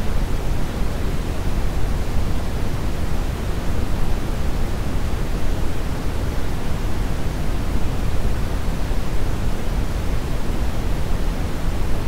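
Calibrated brown noise test signal: steady random noise whose power falls 6 dB per octave, so it is strongest in the bass and thins out toward the treble.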